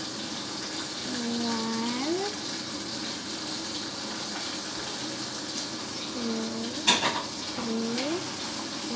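Steady background hiss, with three short hums from a person's voice, each rising at the end, and one sharp tap about seven seconds in.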